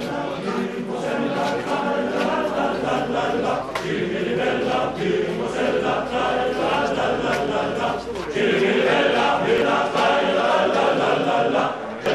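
A choir singing, several voices together in sustained, held notes, growing louder about eight seconds in.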